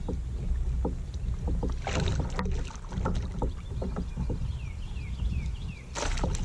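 Sounds from a kayak while a bass is played on a bent rod: a low wind rumble on the microphone, scattered knocks and clicks from the boat and tackle, and two short rushing bursts, about two seconds in and near the end. A run of five short falling chirps comes a little past the middle.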